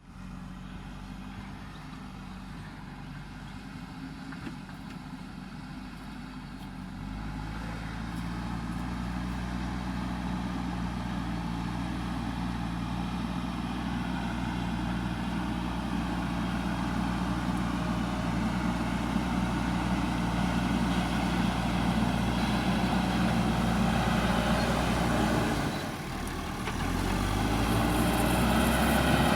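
JCB backhoe loader's diesel engine running steadily, growing louder about a quarter of the way in, then dropping briefly near the end before picking up again.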